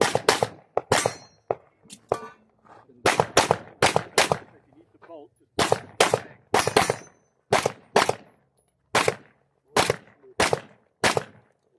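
Handgun fired rapidly on a practical-shooting stage, about two dozen shots, mostly in quick pairs and threes with short pauses between strings.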